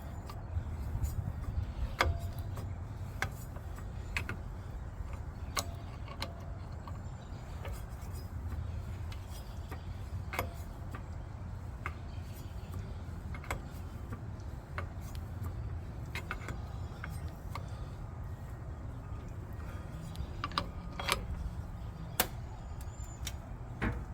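Scattered sharp metallic clicks and taps of hand tools on the propeller nut as it is fitted and tightened onto the mud motor's shaft, over a steady low rumble.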